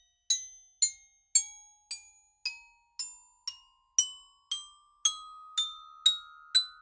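Intro music of bright, bell-like struck notes, about two a second, over a held tone that steps up in pitch.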